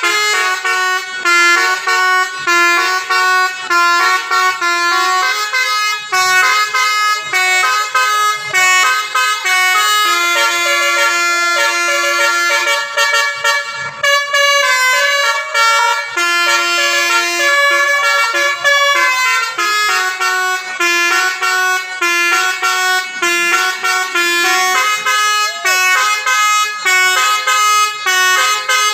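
Indonesian bus telolet horn, a multi-trumpet musical air horn, playing a fast tune. Several tones sound together and step from note to note in quick succession.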